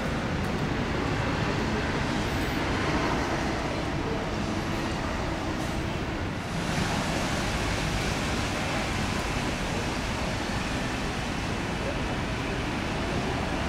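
Steady outdoor city traffic noise, a continuous rumbling wash with no distinct vehicle standing out. It changes character abruptly about six and a half seconds in.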